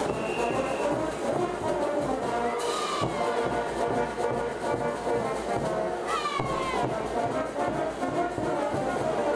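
Brass band playing diablada music, with two brief high sliding sounds about three and six seconds in.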